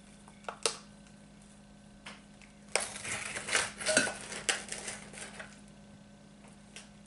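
Plastic measuring spoon scooping granulated sugar from a plastic canister: a few seconds of gritty scraping and clattering of spoon against container, loudest in the middle, after a couple of light clicks about half a second in.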